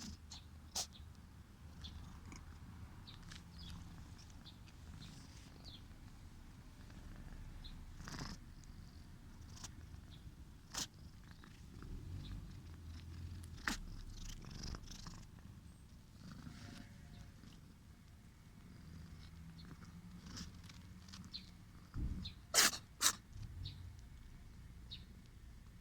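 A stray cat purring with a low rumble, its breathing gurgling through a congested nose, with scattered short sharp nasal sounds; the loudest two come close together near the end. The gurgling is the sign of the chronic nasal cold the cat always has.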